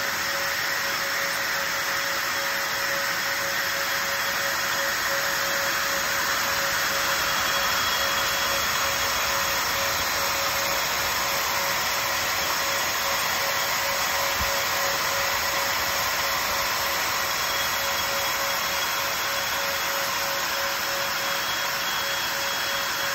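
Voron 0 CoreXY 3D printer running at very high speed, its print head circling continuously over a thin-walled cylinder. Its fans and stepper motors make a steady whirring hiss with one constant whine.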